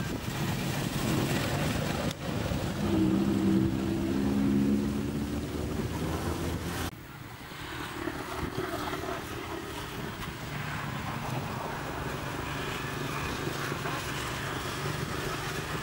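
Background motor vehicle engine noise: a steady hum with a held engine drone for a few seconds, which cuts off abruptly about seven seconds in and leaves a quieter steady rumble.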